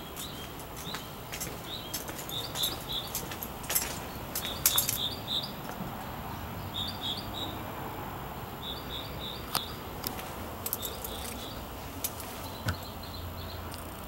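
Small birds chirping in short runs of three or four high notes, repeated every second or two, over a steady outdoor hiss. A few sharp clicks and knocks come through as well, the loudest a little before the middle.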